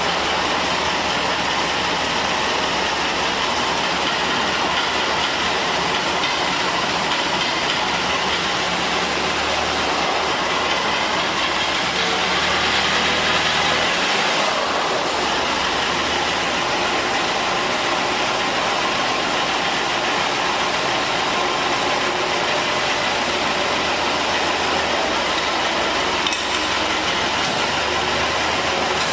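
Four-cylinder gas engine of a 1975 International 4500A forklift running steadily, briefly a little louder about halfway through.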